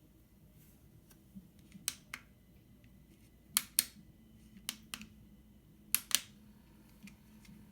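Sharp clicks coming in quick pairs, about four pairs a second or so apart, over a faint steady low hum.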